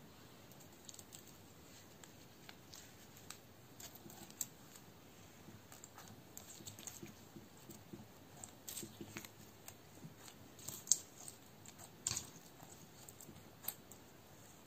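Clear glitter slime being pressed and squished by hand, giving faint scattered clicks and small wet pops that grow more frequent after the first few seconds, with a sharper pop about three-quarters of the way through.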